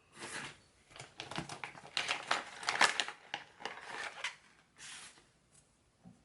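Small metal repair tools clicking, tapping and scraping against an opened iPhone X's screws and internal parts: a quick, irregular run of light clicks, busiest in the middle, with a short soft hiss near the end.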